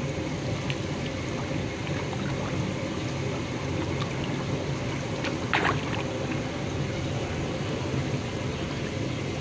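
Steady rush and slosh of pool water as a child swims face-down with a snorkel, kicking and splashing, with one short, louder splash about five and a half seconds in.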